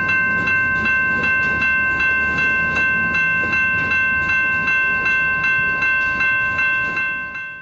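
Grade crossing bell ringing steadily at about two strikes a second over the rumble of a passing freight train; the sound fades out near the end.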